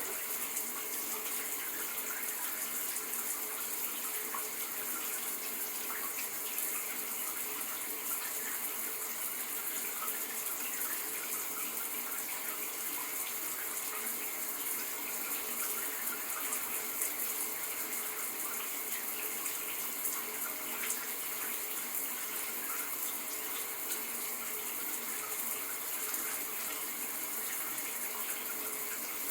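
Running shower: a steady hiss of water spraying and splashing, unchanging throughout.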